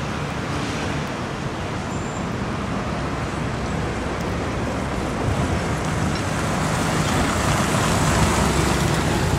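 Steady road traffic of cars and motorbikes, growing louder in the second half as a motorcycle passes close by.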